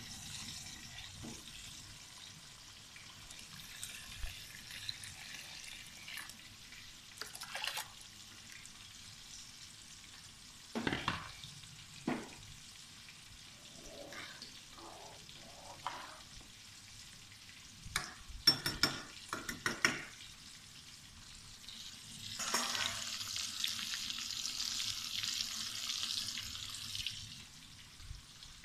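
Pot of rice in stock bubbling hard on a gas hob, with a steady hiss throughout. A few knocks come partway through and a quick run of clicks follows about two-thirds of the way in. Near the end the hiss grows louder for several seconds.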